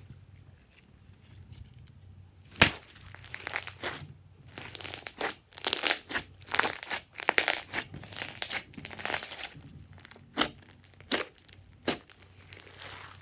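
Glossy slime being squeezed, stretched and poked by hand: wet crackling squelches with sharp pops of trapped air. The loudest pop comes about two and a half seconds in, after a quiet start, and three more sharp pops come near the end.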